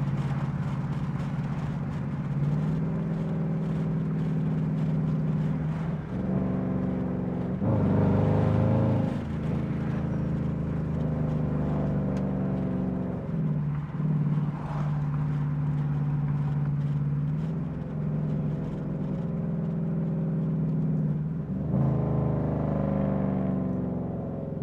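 Dodge Durango R/T's 5.7-litre Hemi V8 running under way, a steady drone whose pitch steps up or down several times as the transmission shifts. It is loudest briefly about eight seconds in, under harder throttle.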